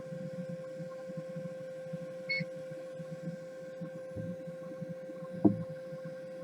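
Steady electrical hum with a low fluttering throb beneath it, a short high beep about two and a half seconds in, and a single sharp knock about five and a half seconds in.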